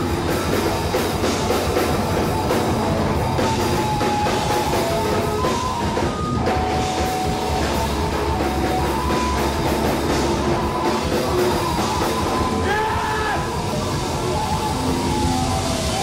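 Live rock band playing a song, with a drum kit and electric guitars.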